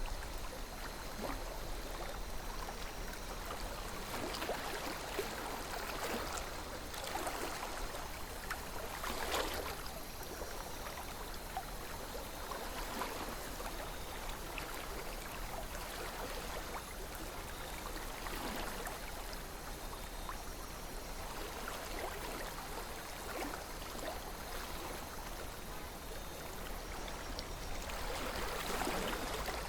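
Small river flowing steadily, water trickling and gurgling with little splashes now and then.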